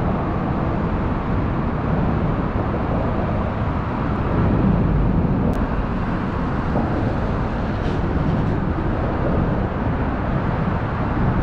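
Steady low rushing background noise with no distinct events, apart from one faint tick about five and a half seconds in.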